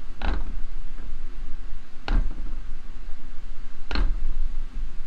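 Three blows struck on a cast-iron Reed bench vise, each with a short ring, about two seconds apart, knocking a part loose during disassembly, over a steady low hum.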